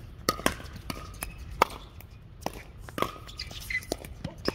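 Pickleball rally: hard paddles striking a plastic pickleball, a string of sharp pops coming irregularly, about one or two a second.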